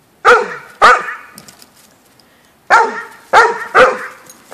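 Dog barking in loud, sharp barks: two in quick succession, a pause of about two seconds, then three more. It is barking at a squirrel it cannot reach.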